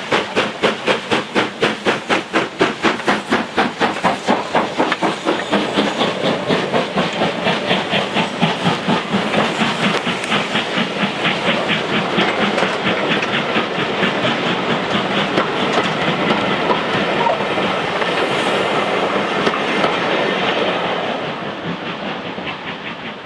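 LMS Black Five 4-6-0 steam locomotive No. 45212 working a passenger train past: a rapid, even exhaust beat that quickens and blends into a steady rush as the train goes by, then fades away near the end.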